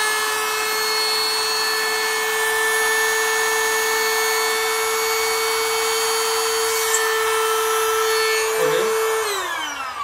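Small corded electric air pump running with a steady whine as it blows air into a PVC play mat's inflatable outer ring. Near the end it is switched off and winds down, its pitch falling away.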